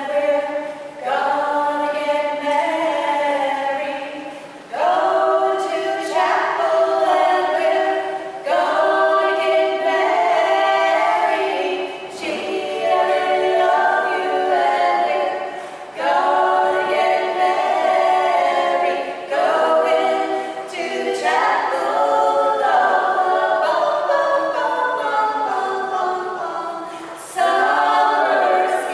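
Background music: an a cappella vocal group singing in harmony, in held phrases a few seconds long with brief breaks between them.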